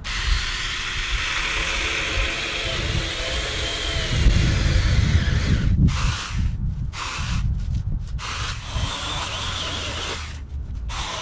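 24-volt cordless 4-inch mini chainsaw running with a motor whine and cutting through small branches and brush. From about six seconds in, it stops and starts again several times in quick succession between cuts.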